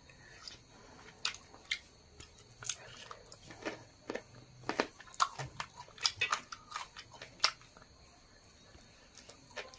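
A person biting and chewing a curry-coated chicken leg piece: irregular wet smacks and sharp clicks of teeth and lips on the meat and skin, pausing near the end.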